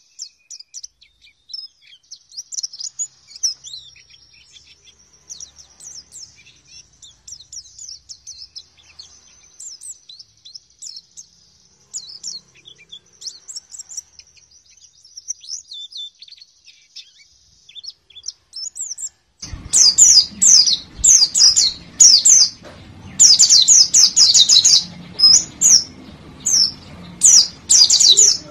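White-eye (pleci) song: a fast run of high, thin chirps and twittering trills. About two-thirds of the way through, the recording changes to a much louder, closer bird twittering rapidly over background hiss.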